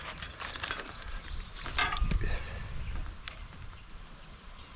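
Light clicks and knocks of tools and small parts being handled during seal work on a hydraulic cylinder, with one louder knock about two seconds in.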